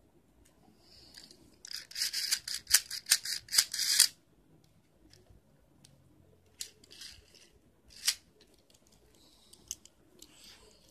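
Beyblade spinning tops whirring and clashing on a plastic tray. A rapid clatter of hits runs for about two seconds, then scattered single clicks follow as the tops knock together.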